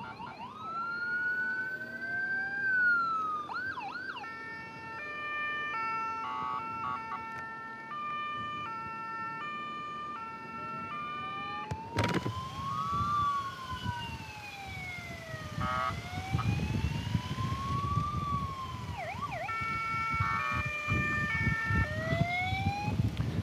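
Several emergency-vehicle sirens sounding at once: slow rising-and-falling wails, two-tone alternating blasts and quick yelps overlapping. About halfway through, a loud rush of wind and motorcycle noise comes in under the sirens.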